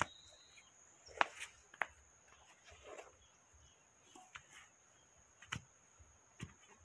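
A few faint, sharp knocks of an iron digging bar driven into wet soil to open a fence-post hole, spread out over several seconds. A steady high-pitched whine runs underneath.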